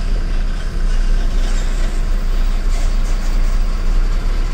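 Truck's diesel engine running steadily with tyre and road noise, heard from inside the cab while driving.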